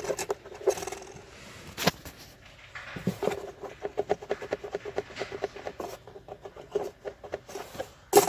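Plastic part of a Lada Xray dashboard creaking in a run of quick squeaks at one steady pitch, with a sharp click about two seconds in and another near the end.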